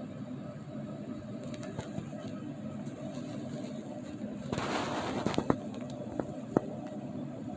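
Snoring: one noisy breath of about a second, a little over halfway through, followed by a few short clicks, over a steady low background hum.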